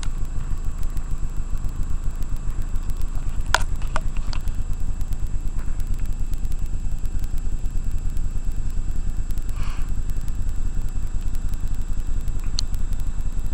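Motorcycle engine running steadily as the bike rides along, a deep rumble with an even pulse. A few light clicks sound around three to four seconds in and once near the end.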